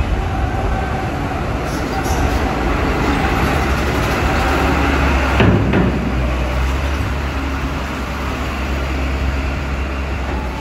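Diesel engine of a heavily loaded Mitsubishi truck running as it drives slowly up the steel ramp onto the ferry's vehicle deck and passes close by, with a sharp clank about five seconds in as it crosses the ramp plates.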